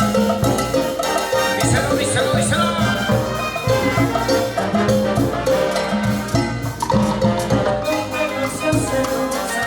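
A band playing Peruvian cumbia, an instrumental passage with sustained melody notes over a steady dance beat and no singing.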